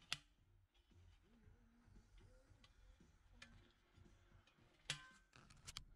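Faint clicks and taps of a sheet-metal tray and its hinged metal leg being handled: a sharp click just after the start, a louder one about five seconds in, and a few quick ones near the end.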